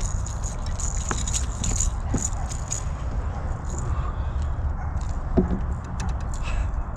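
Light rattling and jangling from a lipless crankbait's rattles and treble hooks as a hooked bass shakes, with scattered sharp clicks over a steady low rumble.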